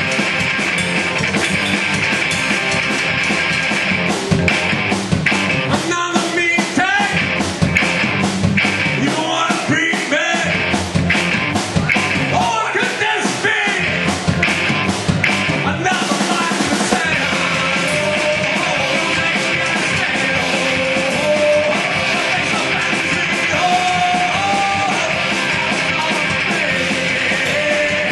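Live rock band playing loudly: distorted electric guitars and drums, with dense drum strokes in the first half. In the last third a melody of held notes steps up and down over the band.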